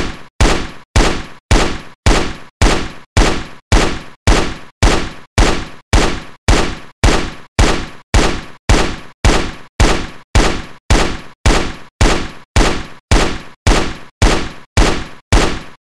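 Galil rifle shots repeating at a steady pace, about two a second, each a sharp report with a short fading tail.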